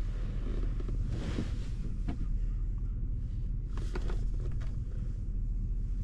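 Steady low rumble inside a parked vehicle's cab, the engine idling, with a brief soft rustle about a second in and a light click near two seconds.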